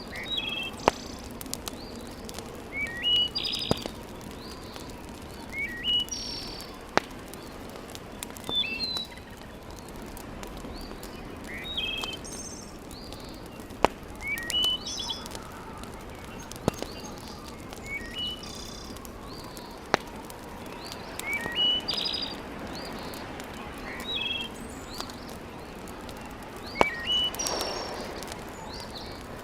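A songbird repeating the same short chirped phrase about every three seconds, over the occasional sharp crackle and pop of a wood fire burning in a fireplace.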